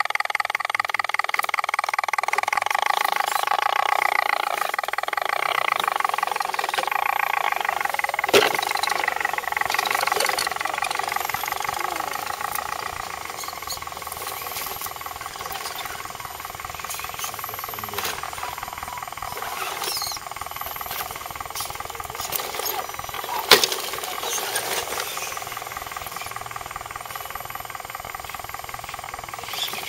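Electric motors and geared drivetrains of RC scale crawler trucks whining steadily as they crawl over rocks, louder in the first half and fading after about twelve seconds. Two sharp knocks, about eight seconds in and near twenty-three seconds in.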